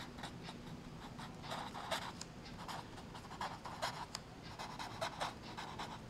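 Felt-tip marker writing on paper: a run of short, faint scratching strokes as the letters are drawn.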